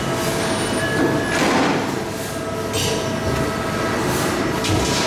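Komatsu 200-ton press brake running in a sheet-metal shop: a steady mechanical hum with faint steady tones, broken by short hissing surges about a second and a half in, near three seconds, and near the end.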